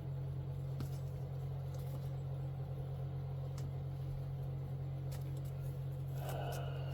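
Steady low hum, with a few faint clicks and a brief rustle near the end.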